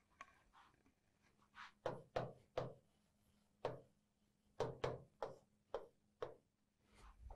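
A pen tip tapping and knocking on the glass of an interactive touchscreen board during handwriting: a faint, irregular series of about ten short taps.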